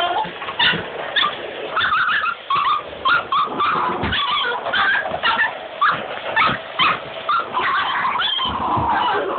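Two dogs barking and whining in a rapid run of short, high calls, several a second, agitated by a vacuum cleaner.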